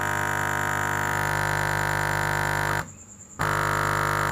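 Bare subwoofer driven by a home-built amplifier with a JRC4558 bass filter board, playing a loud, steady, buzzy synthesizer-like bass note. It cuts out about three seconds in and resumes half a second later.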